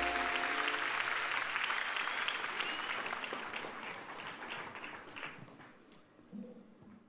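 Last sustained notes of the song die away, and applause from the choir and audience follows, fading out gradually. A brief faint voice is heard near the end.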